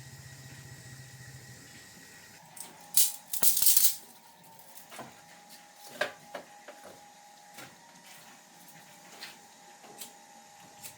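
A small engine idling with an even low pulse cuts off about a second and a half in. About a second later come loud rattling, scraping noises lasting over a second, then scattered clicks and knocks.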